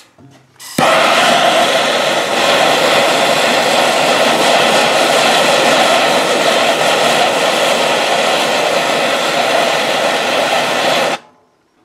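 Handheld gas torch burning with a steady loud hiss of flame, playing on an aluminum live-well crack to heat it for fluxless brazing rod. A click at the start; the flame comes on suddenly under a second in and cuts off abruptly near the end.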